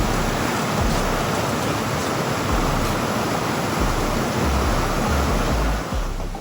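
Loud, steady rushing water, like a river or waterfall close by, cutting off suddenly near the end, with deep irregular bass thumps underneath.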